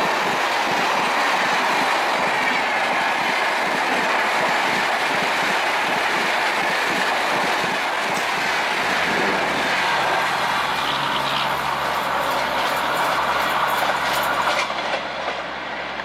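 Coaches of the Rajdhani Express rushing past at speed, a loud steady roar with wheels clattering over the rail joints. The roar thins out near the end as the tail of the train goes by.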